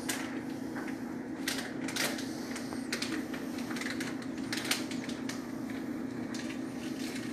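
Irregular light clicks and taps from a container of bacon bits being handled and shaken out over a plate of nachos, over a steady low hum.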